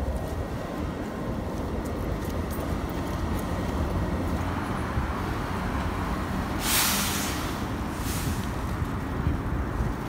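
Steady low rumble of city street traffic, with a loud hiss about two-thirds of the way in and a shorter hiss about a second later.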